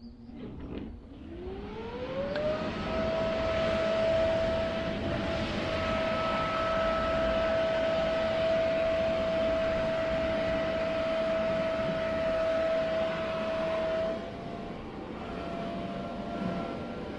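Electric air blower switched on: its motor whine rises in pitch over about two seconds, then runs steady over a rush of air, a little quieter from about fourteen seconds in.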